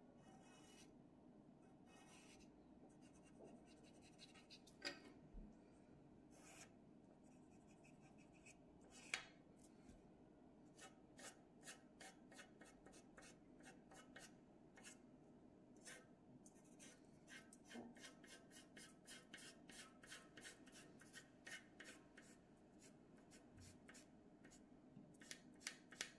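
Faint scratching of a pencil on paper in short, quick strokes while shading. It is sparse at first, then settles into a steady run of about three strokes a second from about ten seconds in.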